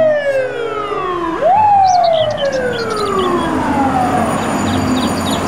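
Fire truck siren sounding a long falling wail. About a second and a half in it jumps quickly back up in pitch and then falls slowly again.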